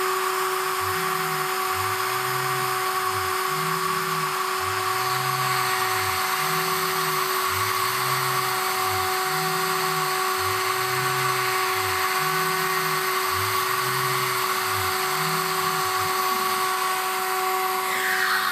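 CNC router's spindle motor running with a steady high whine while a chamfer bit cuts a small chamfer around a hole in an aluminium plate. Beneath it a low hum rises and falls in pitch in even arcs, about one every second and a half, as the axis motors trace circles around the hole.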